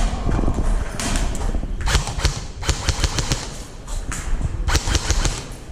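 Airsoft guns firing: a string of sharp, irregularly spaced shots, some in quick clusters, over a constant low rumble.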